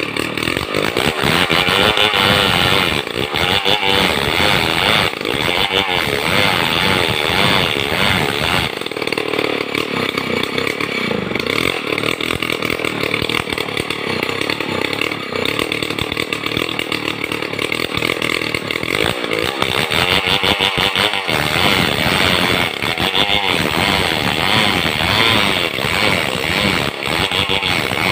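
Two-stroke gasoline chainsaw running under load, ripping lengthwise through a madang timber beam to saw out 5×10 boards. Its engine pitch wavers continuously as it cuts.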